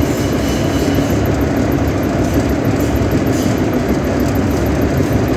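Gravity separator running with a steady, loud mechanical rumble that never pauses, while it separates fibre from rubber granules.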